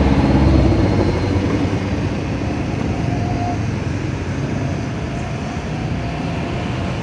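Steady street noise: traffic running with a low rumble that eases about a second in, and faint distant voices.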